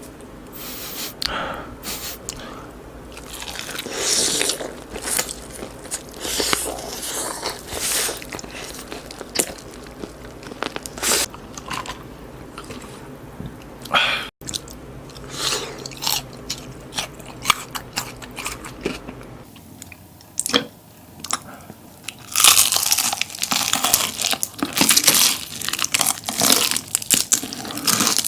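Close-miked eating sounds: repeated bites and chewing of crunchy food, in short, irregular crackles. A low background hum stops about two-thirds of the way through.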